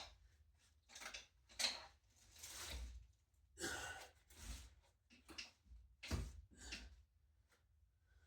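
Faint, irregular handling noises: a string of short scrapes, rustles and knocks, with a few dull low thumps, as scooter parts and packaging are moved about.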